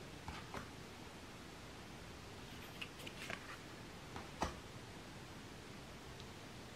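Tarot cards being handled and laid down on a cloth-covered table: faint scattered clicks and slides, with one sharper tap a little past four seconds in, over a steady faint hiss.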